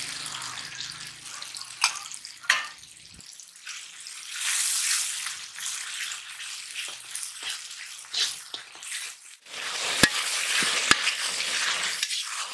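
Tomato-onion masala with ginger-garlic paste sizzling in an iron kadai, stirred with a metal slotted ladle that knocks and scrapes against the pan several times.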